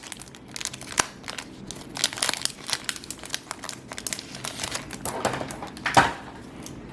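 Foil Yu-Gi-Oh! booster pack wrapper crinkling and tearing as it is opened by hand, with sharp crackles, the loudest about a second in and near six seconds.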